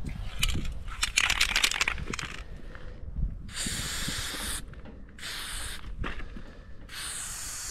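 Aerosol spray-paint can spraying in three hissing bursts, the first starting about three and a half seconds in, the last the longest. Before them comes a couple of seconds of rapid clicking and rattling.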